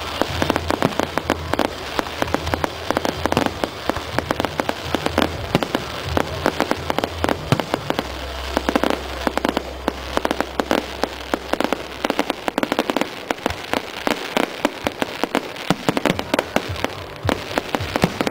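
Aerial fireworks bursting: a dense, rapid run of sharp bangs and crackles, with louder reports scattered among them.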